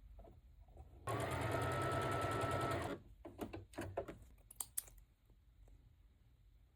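Electric sewing machine running a short seam for about two seconds, its needle stitching in a fast steady buzz, followed by a few light clicks and taps.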